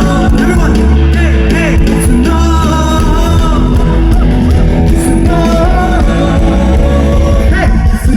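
Live band music with a man or woman singing over a steady beat, loud and continuous.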